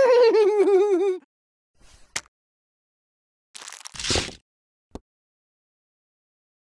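A high-pitched cartoon character voice with a fast wavering warble, sliding slowly down in pitch through the first second. Then a click, a short crinkle of a plastic snack wrapper being handled about four seconds in, and another faint click.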